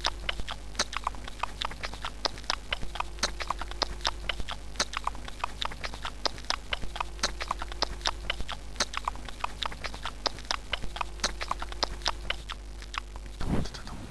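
Rapid, irregular clicking and clacking, several clicks a second, over a steady low hum and faint held background tones that recur every couple of seconds. The clicks stop shortly before the end.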